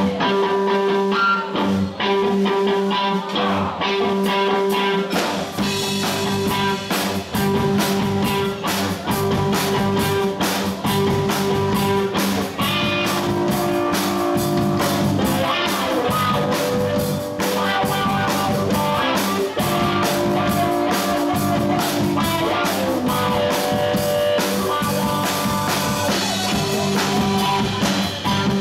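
Live band playing an instrumental passage on electric guitar, bass guitar and drum kit. The guitar starts nearly alone, and drums and bass fill in about five seconds in.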